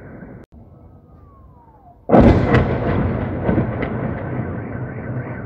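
A car alarm wails until a sudden cut, then a faint whistle falls in pitch. About two seconds in, a loud shell explosion hits, echoing and rumbling away with a few further sharp cracks, and the car alarm is heard again near the end.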